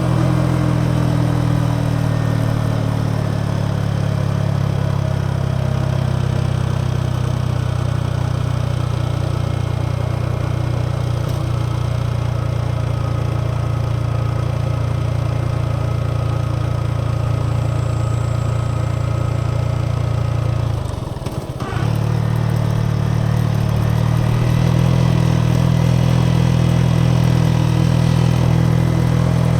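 Yamaha XSR 155's single-cylinder engine and exhaust running steadily while riding, falling slightly in pitch in the first few seconds. About two-thirds of the way through the sound dips briefly, as on a gear change, then carries on steadily, a little louder.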